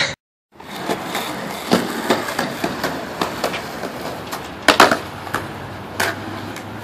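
Skateboard wheels rolling over concrete pavement with clacks of the board hitting the ground, the loudest a little before five seconds in and another about a second later.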